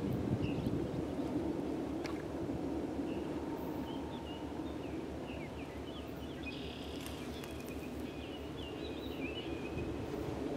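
Steady low rumble of wind on the microphone and a distant approaching diesel locomotive, an EMD SD60, still far off. Small birds chirp many times through the middle.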